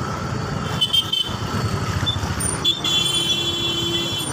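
Busy street traffic running, with vehicle horns honking: a short high-pitched honk about a second in and a longer one near the end.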